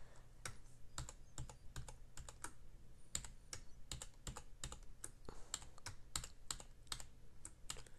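Computer keyboard keys pressed one at a time, about three or four faint clicks a second at an uneven pace: the arrow keys being tapped to nudge the spacing between letters.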